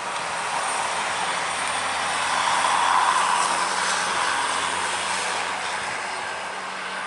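Hino RK8 coach driving past, its engine and tyre noise swelling to a peak about three seconds in, then fading as it moves away.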